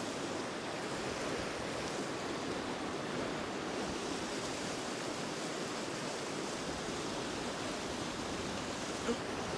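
Small river rushing steadily over rocky rapids close by, an even white-water rush.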